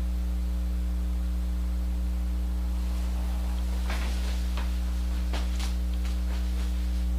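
Steady low electrical mains hum in the recording, with a few faint clicks in the second half.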